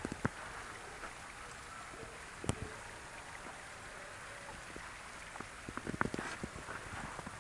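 Faint steady rush of a slow-flowing creek, with a single sharp click about two and a half seconds in. A cluster of crunching footsteps in snow comes near the end.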